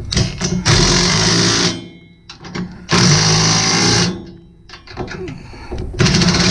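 Cordless driver spinning a socket to run hitch-bracket bolts up snug, in three runs of about a second each, with a few clicks in between.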